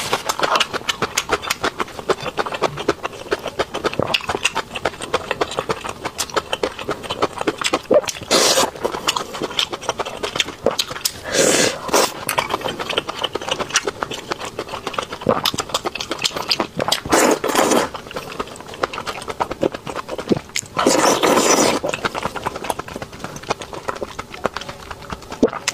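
Close-miked eating sounds: rapid wet chewing and lip smacking of seafood in spicy chili-oil broth, broken by a few longer, louder slurps.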